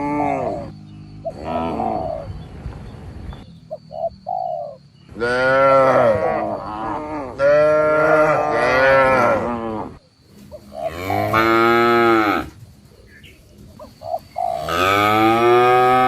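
Cattle of a village herd mooing: about six long, drawn-out moos follow one another every couple of seconds, each rising and then falling in pitch.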